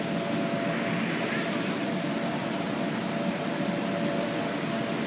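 Steady rushing air noise with a constant hum from an electric blower fan keeping an inflatable slide inflated.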